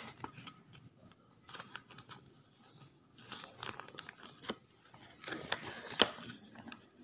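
Clear plastic packaging bag crinkling and rustling in scattered bursts as it is handled and cut open, with a sharp click about six seconds in.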